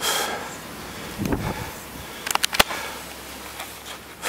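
A person breathing hard in noisy surges. A few sharp clicks come about two seconds in.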